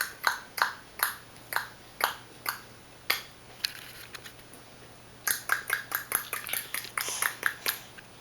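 A person making tongue clicks with the mouth: sharp clicks about three a second, a pause of about two seconds midway, then a quicker run of clicks.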